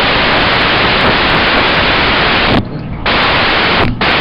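Loud, even static hiss on the recording, cutting out briefly about two and a half seconds in and again near the end.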